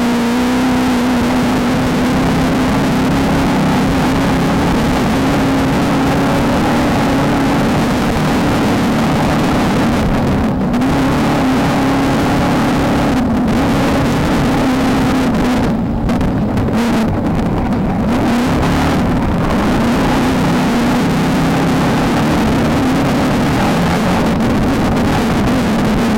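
Off-road race car engine running hard and steady at a slightly wavering pitch under a constant rush of noise. The hiss drops out briefly a few times around the middle.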